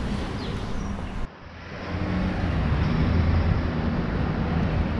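Motor-vehicle traffic: a vehicle engine running with a steady low hum and road noise. The sound breaks off abruptly a little over a second in and resumes.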